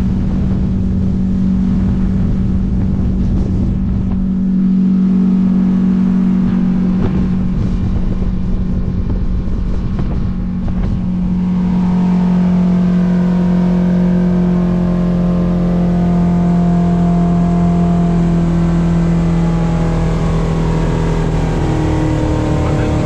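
Boat engine running steadily under way, a loud steady drone whose pitch slowly sinks a little lower.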